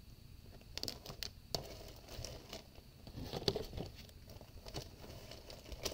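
Underwear packages in plastic wrap and cardboard boxes being handled and moved: crinkling and light taps and knocks, starting about a second in.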